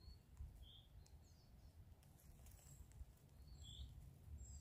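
Faint forest ambience: a few distant birds giving short, high chirps now and then over a low, steady rumble.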